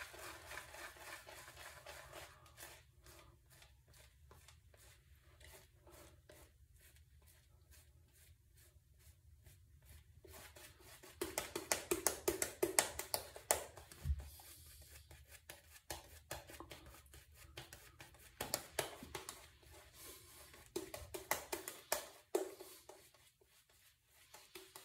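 A shaving brush working lather on the face, then a double-edge safety razor scraping through lathered stubble on the neck in quick, short strokes. The strokes are faint at first and loudest from about eleven to fourteen seconds in.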